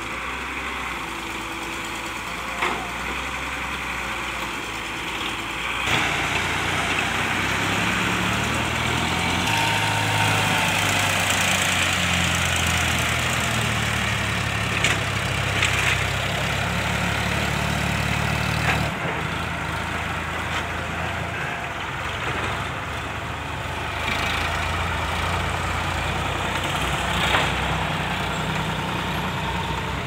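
Diesel tractor engine running, first at a lower level with an excavator's diesel working nearby, then louder from about six seconds in as it pulls a loaded mud trolley, its pitch shifting up and down. A few short knocks come through.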